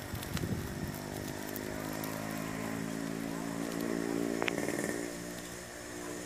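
A small engine running at a steady pitch, growing louder and then fading after about five seconds, over the crackle of a fire of dry palm leaves.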